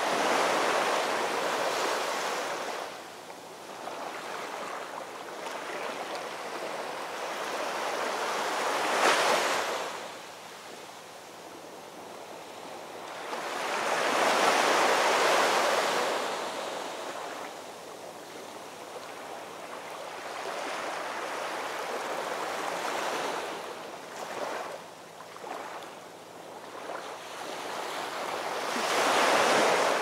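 Small waves breaking and washing up a sandy beach among rocks, the surf swelling and fading in slow surges every several seconds.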